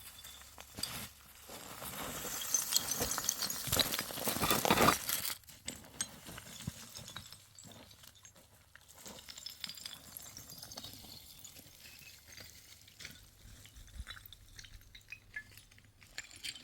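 Loose stones clattering and crunching, heaviest between about two and five seconds in, then thinning to scattered light clicks.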